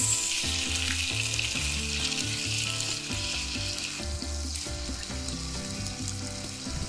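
Pork belly, komatsuna and green pepper sizzling in a non-stick frying pan in a soy-sauce and mirin seasoning as they are stirred with wooden chopsticks, the liquid cooking down. The sizzle eases about four seconds in.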